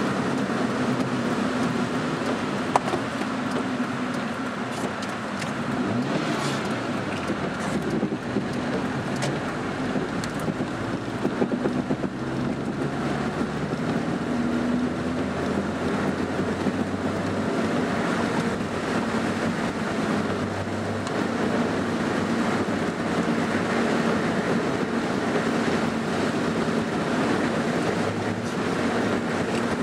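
Car driving on a wet road, heard from inside the cabin: steady engine drone and tyre noise on wet pavement.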